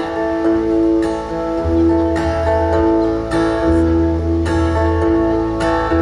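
Live band playing the instrumental intro of a song: strummed acoustic guitar over a long held note, with electric bass notes coming in about a second and a half in.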